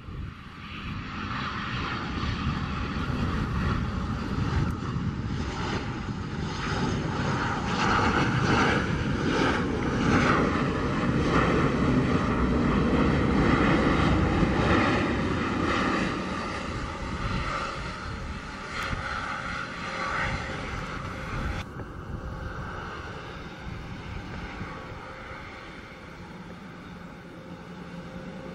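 Jet engines of a large twin-engined business jet rolling out after landing. The sound builds to its loudest around the middle as the jet speeds down the runway past the listener, then fades as it slows to taxi.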